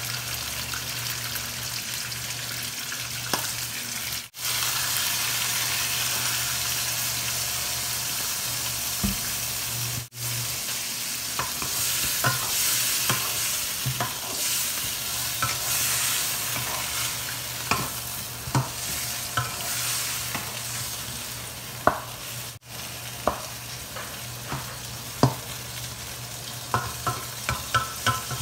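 Chicken frying in a nonstick pan with soy sauce just added: a steady sizzling hiss that briefly drops out three times. From a little before halfway, a wooden spatula stirs the chicken, with scattered knocks and scrapes against the pan.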